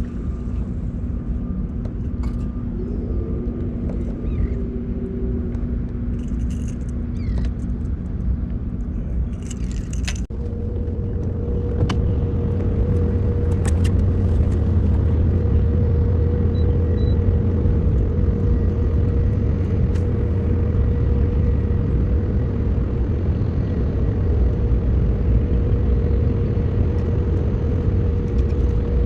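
Small boat's motor running under way with a steady low rumble. About ten seconds in, a steady higher hum joins it and the rumble grows louder, as if the motor were opened up.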